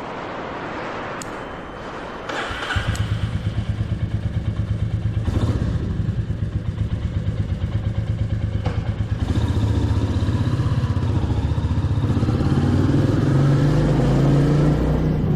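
Royal Enfield Meteor 350's single-cylinder engine comes to life about two and a half seconds in and runs with an even, low pulsing beat, rising in pitch near the end as it is revved or pulls away.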